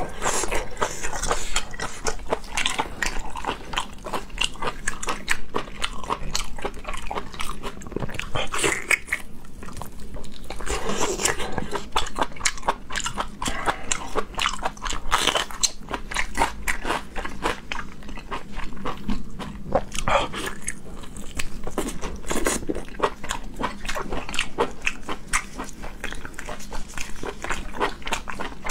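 Close-miked eating sounds: biting into and chewing large red sausages, with dense wet mouth clicks and smacking all the way through.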